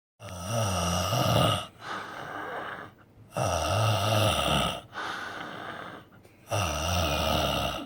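A man snoring in his sleep: three loud, low-pitched snores about three seconds apart, with quieter breaths between them.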